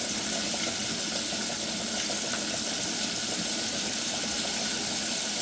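Food frying in a pan of hot grease: a steady sizzle with fine crackling throughout.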